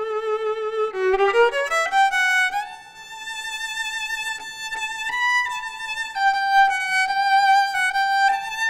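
Solo violin bowed melody: a quick run of short notes in the first two seconds, then long held notes with vibrato.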